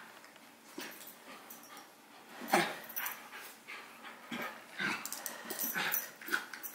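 Two small dogs, a Havanese puppy and a miniature schnauzer, play-fighting: short dog noises come in irregular bursts, the loudest about two and a half seconds in.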